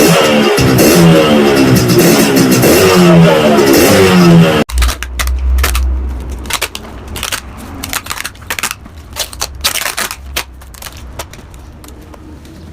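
Yamaha RX-King two-stroke motorcycle exhaust, loud, revving up and down repeatedly with a raspy tone, then cutting off abruptly about five seconds in. After the cut there is a low rumble with scattered sharp clicks and pops.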